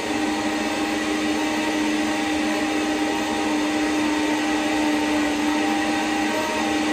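Countertop blender running steadily at high speed, blending water with hemp seeds and oats into plant milk: a constant motor hum over a rushing churn.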